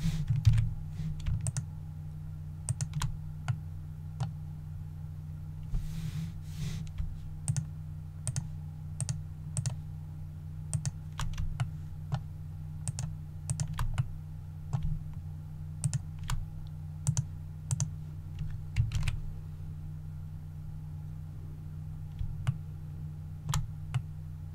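Irregular clicks of a computer mouse and keyboard, roughly one a second, over a steady low hum. A brief rustle sounds about six seconds in.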